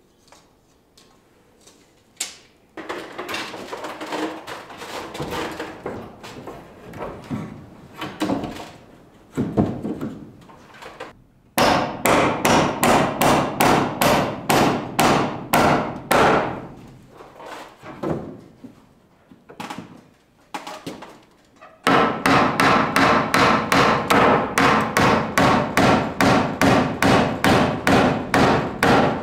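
Hand hammer driving nails into wooden boards: a few scattered knocks, then long runs of quick, even strikes at about four a second.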